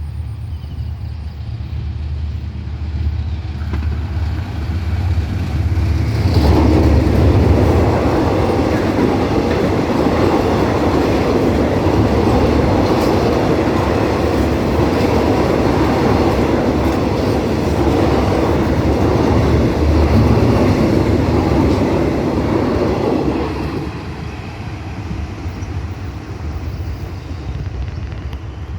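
Passenger train passing close by: a diesel locomotive's low rumble, then the wheels of the coaches running loudly over the rails for about seventeen seconds before the noise drops away as the train leaves.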